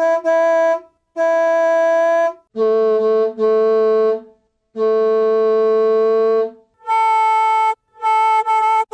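School bus horn blowing its 'beep, beep, beeeep' pattern of two short honks and one long one, as digitally edited variations. The pattern repeats at a lower, deeper pitch, then two more short honks come at a higher pitch near the end.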